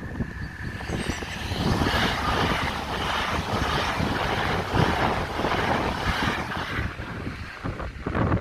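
Train passing at speed over the level crossing: a rushing noise that swells about a second and a half in, holds for several seconds, then eases off near the end.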